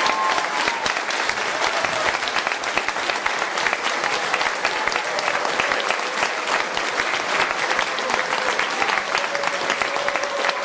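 Audience applauding steadily: dense, even hand-clapping.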